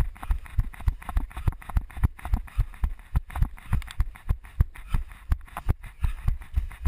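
A runner's footfalls on grassy ground, heard as a steady beat of heavy thuds through a head-mounted camera, about three a second.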